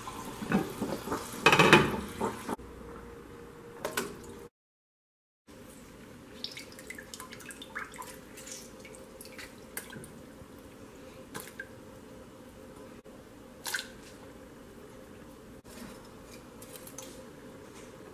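Pieces of lemon, onion, garlic and bay leaf dropped into a large pot of water, making small plops and splashes over a faint steady hiss. The first two seconds hold a louder burst of water and handling noise.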